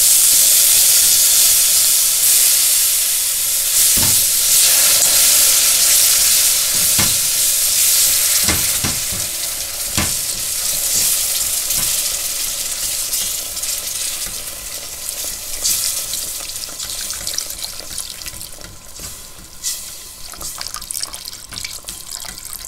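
Hot dark roux of butter and flour sizzling as water is poured in and whisked, the sizzle slowly dying down as the sauce thins out. A metal whisk knocks against the steel pot a few times in the first half.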